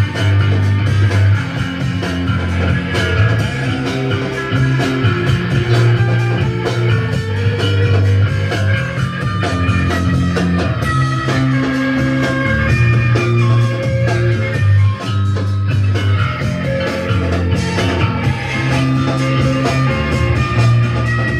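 Instrumental rock jam, with guitar playing over a prominent, steadily moving bass line and no singing.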